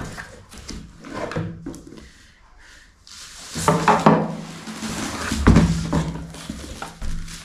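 Cardboard box being opened and a helmet in a fabric bag pulled out of it: rustling, scraping and a few bumps. They are soft at first, then loud in the second half.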